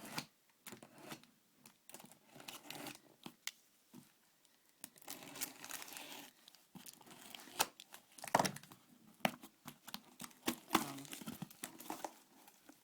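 Shipping packaging being torn open and crumpled by hand: irregular rustling and tearing with many sharp clicks and crackles, loudest about eight seconds in.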